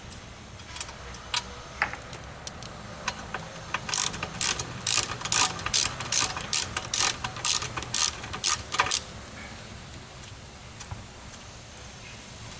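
Hand ratchet wrench clicking through a quick run of short strokes, about three clicks a second for some five seconds, with a few scattered clicks and knocks of tools and parts before it, as bolts are undone.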